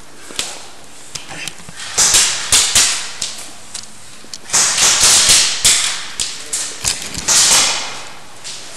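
Airsoft fire at close range: rapid, irregular sharp cracks and smacks, several a second, coming in three clusters, each hit with a short ringing tail like BBs striking wooden barriers.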